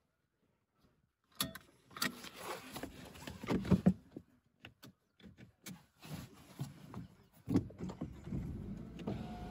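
Handling noise inside a parked car: a phone camera being moved about, giving a run of sharp clicks and knocks with rubbing and rustling between them, starting after a moment of near silence.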